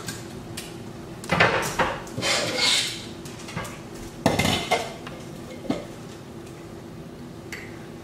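Pots, pans and utensils clattering and knocking as they are handled in a kitchen. There are several clatters, the loudest about four seconds in, with a few single knocks after it.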